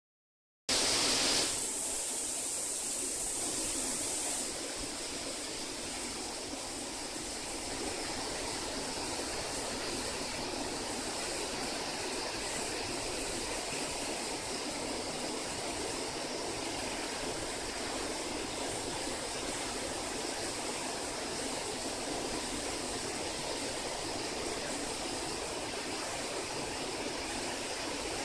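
Water rushing steadily down a waterfall stream, with a brighter hiss in the first few seconds.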